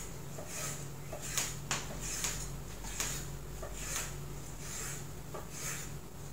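Kitchen knife cutting on a wooden chopping board: soft scraping strokes and a few light knocks, about one a second.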